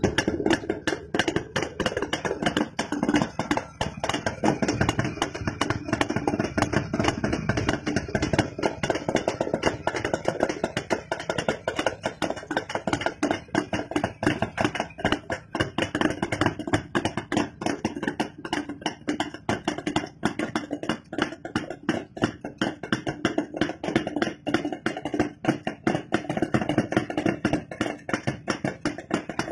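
Jawa Yezdi two-stroke motorcycle engine idling through its twin exhaust pipes, with a fast, uneven popping beat that keeps going steadily.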